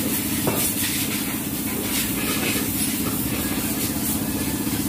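An engine idling steadily with a fast, even low hum, with one short click about half a second in.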